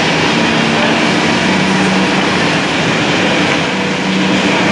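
A multi-head CNC wood mortising machine running in automatic mode: steady mechanical noise with a low hum that comes in twice.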